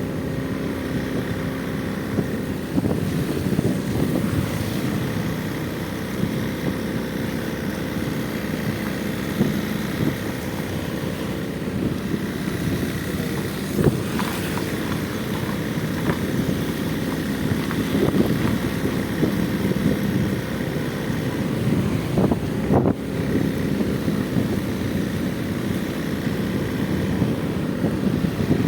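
Heavy rain falling in strong gusting wind, the wind buffeting the microphone: a steady rushing noise with occasional louder gusts.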